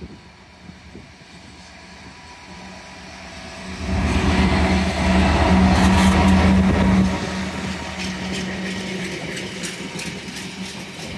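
Freightliner Class 66 diesel-electric locomotive drawing near and passing close by, its engine drone loudest for about three seconds around the middle. Its empty container flat wagons follow with a lighter rumble and a run of sharp clicks from the wheels over the rails.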